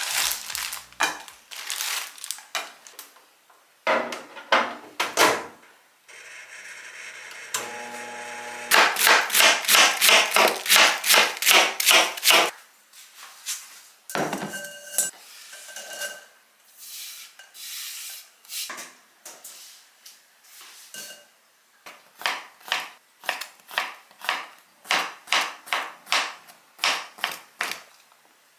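Kitchen prep sounds: a chef's knife chopping on a cutting board, a fast even run of strokes about a third of the way in and slower chops near the end, with bowls and utensils knocking in between. A brief steady hum sounds just before the fast chopping.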